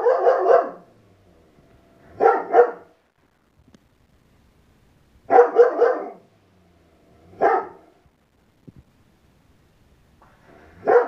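Husky barking in bursts of a few quick barks each, with a couple of seconds of quiet between bursts and a single bark about three-quarters of the way through.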